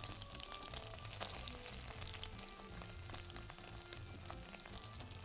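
Chicken skin frying in a pan, sizzling and crackling steadily as it crisps into cracklings.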